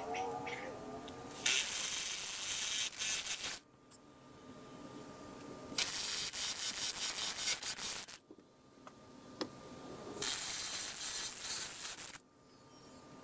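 Power impact driver running in three bursts of about two seconds each, tightening the nuts on the anchor bolts that hold the wooden sill plates to the concrete piers.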